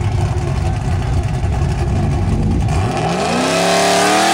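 Street drag race launch: engines rumbling heavily and unevenly at the line, then about three seconds in a car launches and accelerates hard, its engine pitch climbing quickly and levelling off as it pulls away.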